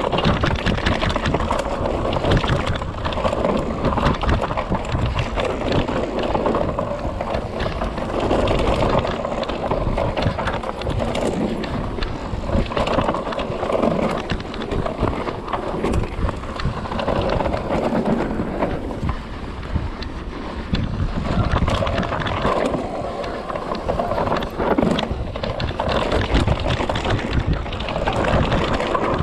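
Scott mountain bike descending a dirt singletrack: steady rumble of the tyres on dirt, with constant clattering and knocking of the bike over roots and ruts, and wind on the microphone.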